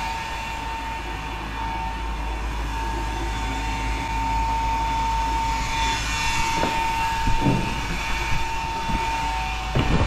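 A steady mechanical running noise with a constant high whine, and a few short knocks in the second half.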